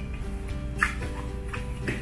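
Background music with sustained, gently changing notes, with two light knocks about a second apart.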